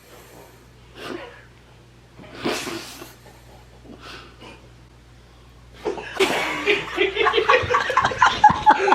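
A few short, hushed breathy giggles over a steady low hum, then several people burst out laughing loudly about six seconds in.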